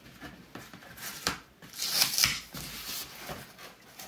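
Cardboard comic mailer sealed with blue painter's tape being handled and worked open: rustling and scraping of cardboard and tape, with a sharp click a little over a second in and a louder hissing scrape about two seconds in.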